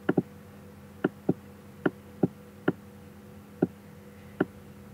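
Computer mouse clicks, about nine short clicks at irregular spacing, some in quick pairs, over a steady low electrical hum.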